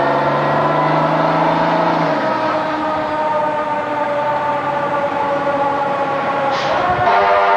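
Fire truck siren wailing as the apparatus drives past, its pitch slowly falling and then winding up again near the end, over the rumble of the diesel engine. A short hiss sounds about six and a half seconds in.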